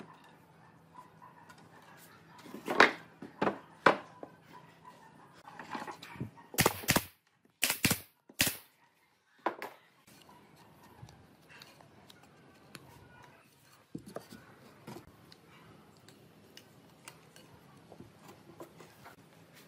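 Several sharp knocks, the loudest a quick cluster about seven to eight and a half seconds in, with faint scattered clicks and taps between them.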